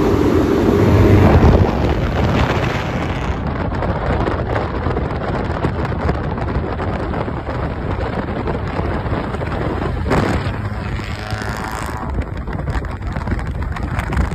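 1998 Honda Civic's D16Y7 four-cylinder, with a muffler delete and test pipe, driving past loudly in the first second or two. Then comes wind buffeting the microphone and road noise as the car is paced at speed, with a brief rise in engine pitch about ten seconds in.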